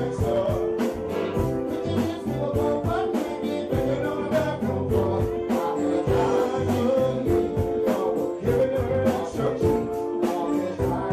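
Up-tempo dance music with a steady drum beat, bass and guitar, and a singing voice over it.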